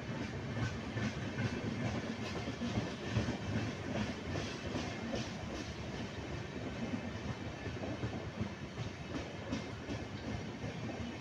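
Indian Railways LHB passenger coaches of an express train rolling past: a steady rumble with the wheels clicking repeatedly over rail joints.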